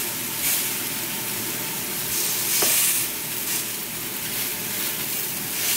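Slider patties sizzling as they sear in a hot pan, the hiss swelling and easing every second or so, with a brief click partway through.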